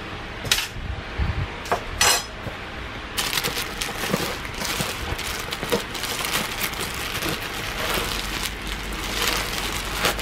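A few sharp metal clinks in the first two seconds. Then a cardboard product box and its packaging are handled, with steady crinkling and rustling for the rest of the time.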